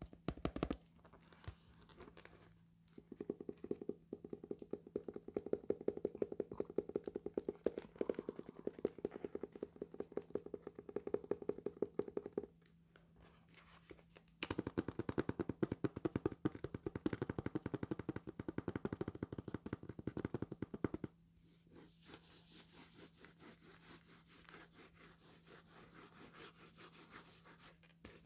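Comb teeth scraped across a sheet of calendar paper, making a fast run of crackling ticks. There are two long strokes, each several seconds long, then softer rubbing on the paper near the end.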